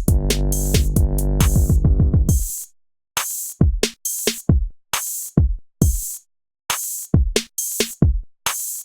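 Electronic intro music with a drum-machine beat: a sustained bass and chords for about the first two and a half seconds, then sparse drum hits with short silences between them.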